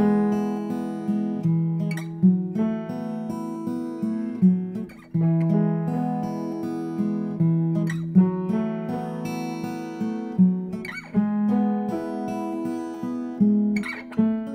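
Background music on acoustic guitar: chords struck every second or two and left ringing.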